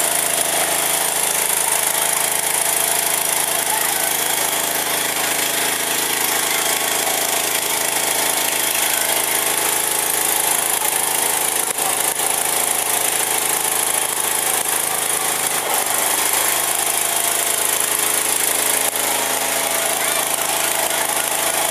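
Fire truck's engine and pump running steadily at constant speed, a continuous drone with a strong hiss over it.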